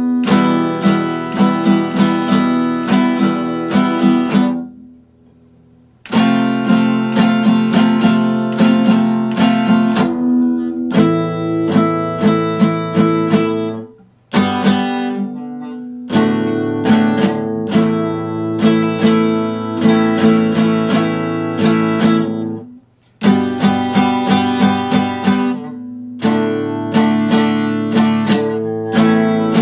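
Epiphone acoustic guitar strummed in a steady rhythm of chords, stopping briefly three times: once about five seconds in, then near the middle and again about three-quarters of the way through.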